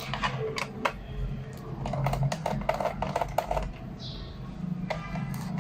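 Small clicks and scrapes of a screwdriver working the screws out of a laptop's plastic bottom case, with light taps of plastic and metal, in quick runs about two seconds in.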